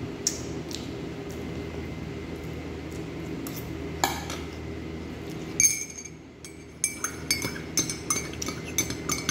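Metal spoon clinking against a ceramic plate while eating. There are a few light taps in the first half, then a quick run of ringing clinks over the last few seconds, over a steady low hum.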